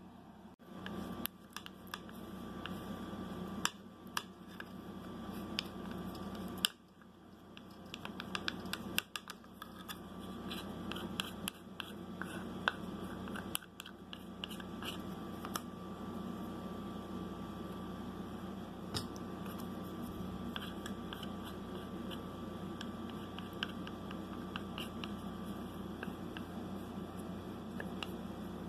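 Steady low hum with light clicks, taps and scrapes of small wooden pieces being handled on a workbench and glue being spread with a thin wooden stick. The clicks come most often in the first half.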